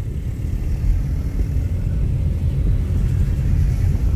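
Low, steady rumble of a car driving, heard from inside the cabin.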